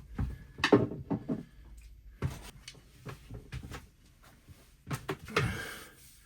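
Irregular clicks and knocks of metal hose clamps and tools being handled and sorted while fitting a replacement clamp to an engine hose, with a longer rustling scrape near the end.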